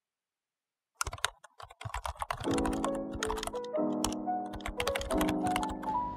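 Rapid keyboard typing clicks starting about a second in, with background music coming in under them after about two and a half seconds.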